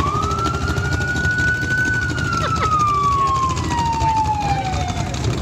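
A siren sounding one long wail: it rises quickly, holds high for about two seconds, then slowly falls in pitch until it dies away near the end. It is heard over the low engine noise of vehicles passing.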